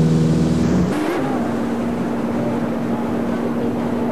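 Boat engine running steadily. About a second in, the recording cuts to a different steady engine hum over a hiss of wind and water.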